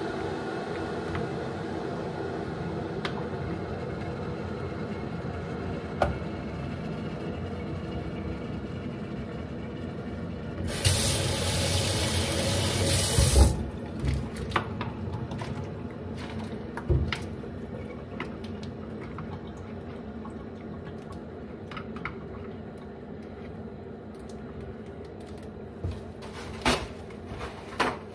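Water rushing into a plastic drinking-water bottle for about three seconds, starting some eleven seconds in, hot water filled in to make a makeshift hot-water bottle. Before it a steady hum; after it scattered clicks and crackles of the plastic bottle and cap being handled.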